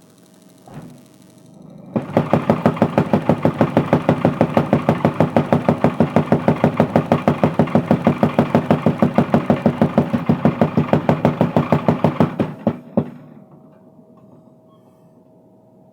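Mechanical power hammer forging a crowbar, pounding in fast, even blows at about six a second for around ten seconds, then stopping with a couple of last knocks. A faint steady hum is heard before and after the hammering.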